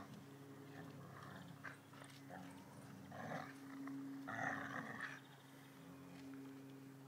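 Dogs growling in play as they tug on a stick between them, in short rough bursts, the loudest about three seconds and four and a half seconds in.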